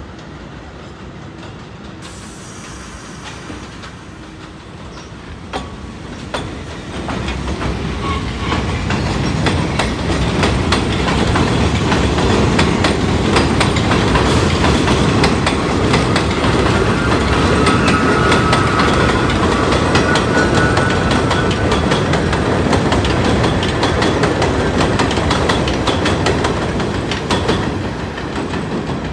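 R68 subway train running past on elevated steel track: a heavy rumble with the clickety-clack of wheels over rail joints. It builds over the first several seconds and eases near the end, with a light wheel squeal about halfway through.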